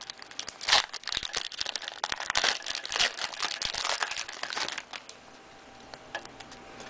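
Crinkling and rustling of trading-card pack wrappers and cards being handled, in many small irregular crackles that die down about five seconds in.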